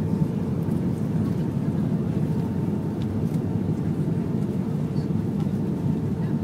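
Cabin noise of an Airbus A380 on its takeoff roll: its four Rolls-Royce Trent 900 engines at takeoff thrust, a loud, steady roar with a low rumble and a faint steady hum.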